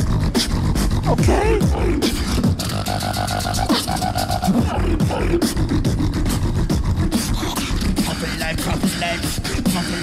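Two beatboxers performing a tag-team beatbox routine into handheld microphones: a fast, dense stream of sharp clicks and snares over deep bass, with a short held pitched vocal tone a few seconds in.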